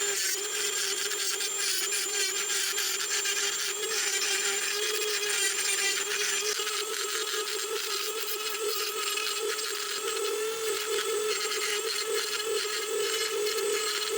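Handheld rotary tool with a fine engraving bit running at a steady speed while it grinds away wood to carve out a figurine's fins: a constant high motor whine over the scratchy rasp of the bit in the wood.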